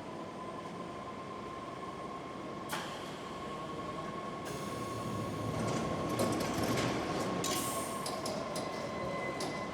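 London Underground train at the platform: a steady high electrical whine over a dense rumble, the rumble building about halfway through, with a few sharp clicks and knocks.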